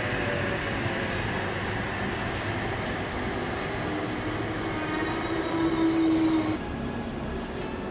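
Heritage tram running on its rails with a steady rumble and a tone rising in pitch from about four seconds in. Two short hisses come about two and six seconds in, and the loudest stretch cuts off suddenly around six and a half seconds.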